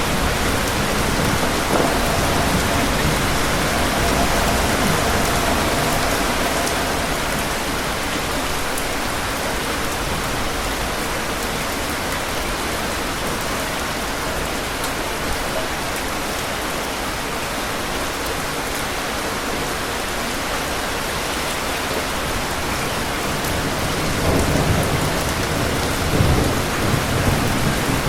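Steady rain with rolling thunder: a low rumble through the first few seconds and another, louder one near the end.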